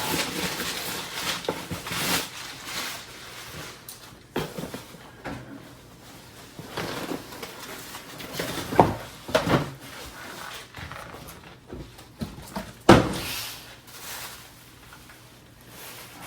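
Unpacking a shipped oscilloscope: packing material rustling and scraping for the first few seconds, then scattered knocks and bumps as the heavy instrument and its box are handled, the loudest near the end.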